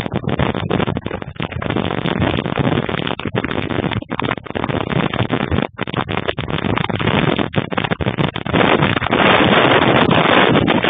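Strong tornado winds blasting over a security camera's microphone: a dense rushing noise that surges and dips, with a few brief dropouts, and is loudest for about two seconds near the end.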